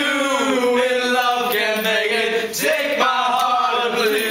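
Men singing loudly in a chant-like tune, with long drawn-out notes and a short break partway through.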